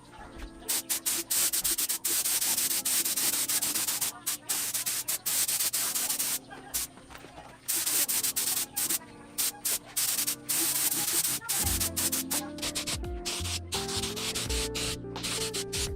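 Paint spraying: a high hiss in many short passes that start and stop abruptly, as coats of paint go onto the motorcycle parts. Background music plays underneath, with a bass beat coming in near the end.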